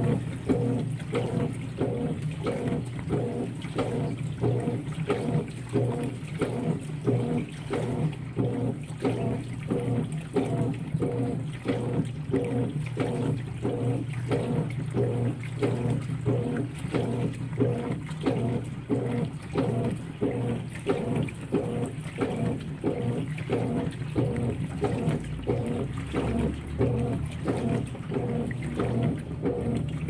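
Top-load washing machine agitating a load of towels in soapy water: water and fabric swishing back and forth in an even rhythm of about one and a half strokes a second, over a steady low hum.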